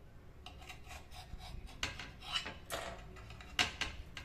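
A knife sawing through a crisp toasted sandwich in several short crunching, scraping strokes, the loudest about three and a half seconds in.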